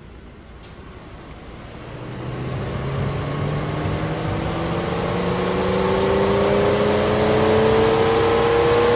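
Mercedes C-Class electric radiator cooling fan spinning up to full speed, its whine slowly rising in pitch and its rush of air growing louder over several seconds. It runs full blast with the engine temperature low and the A/C off, a fault traced to a defective engine control unit.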